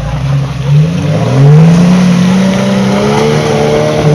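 Off-road 4x4's engine revving: the revs climb sharply about a second in and are then held high.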